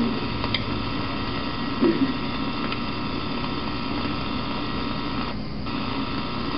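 Steady electrical mains hum and hiss on the recording, with one brief low sound about two seconds in.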